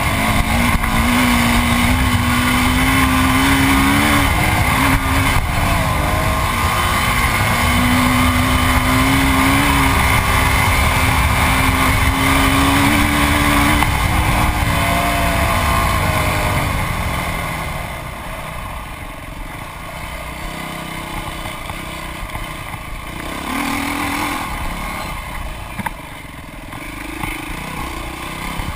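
Dirt bike engine held at high revs at speed, its pitch wavering slightly, with wind noise on the microphone. A little over halfway through, the engine drops off as the bike slows, then runs at lower, uneven revs.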